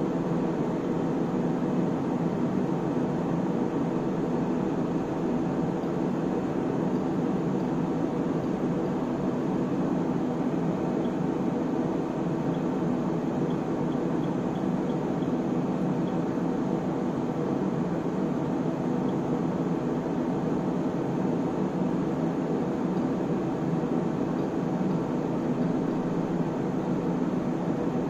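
Cooling fans of bench electronic test equipment running with a steady hum. A few faint high ticks come in the middle as keys are pressed.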